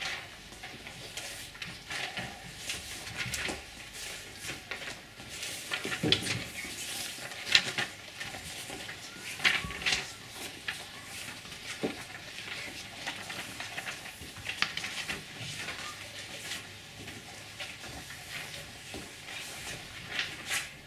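Sheets of paper rustling and crinkling as forms are handed out and taken, with scattered small clicks and knocks of handling in a classroom.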